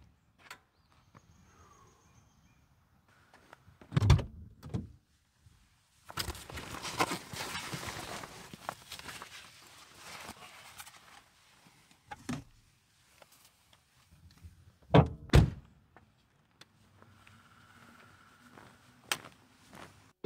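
Ram pickup truck doors shutting with heavy thunks, several times, the loudest a close pair about fifteen seconds in. Between them comes a stretch of rustling as a backpack is lifted out and shouldered.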